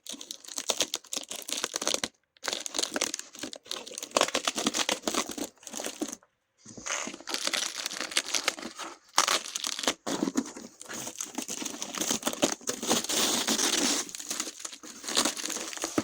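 Packaging crinkling and rustling as boxed fireworks are handled and rummaged through, breaking off briefly twice.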